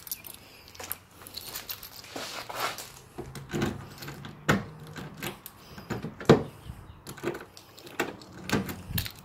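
Metal key jiggling and turning in a Nissan Skyline R32 GT-R's door lock: a string of irregular sharp clicks and rattles, the loudest about six seconds in. The lock is being opened by hand because the car's battery is dead and the remote does nothing.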